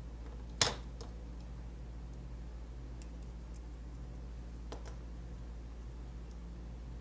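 Soldered circuit boards handled on a cutting mat: one sharp click about half a second in, a softer click near five seconds and a few faint ticks, over a low steady hum.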